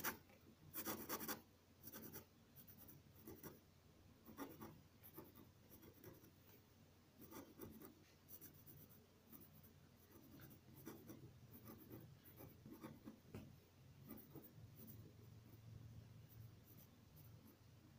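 Ballpoint pen scratching on paper in many short, quick strokes, drawing the thin branches of a bare tree. Faint, with the longest and loudest stroke about a second in.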